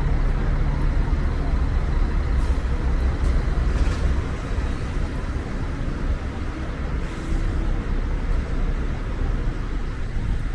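City street traffic: a steady low rumble of vehicle engines and road noise, heaviest in the first few seconds and easing slightly later.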